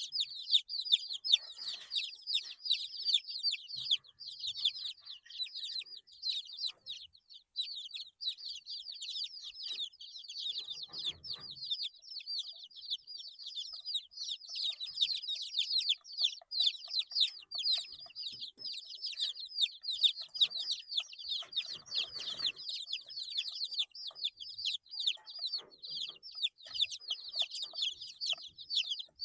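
A flock of 8-day-old chicks peeping nonstop: many short, high, downward-sliding peeps overlapping. Two brief noises stand out, about a third and three quarters of the way through.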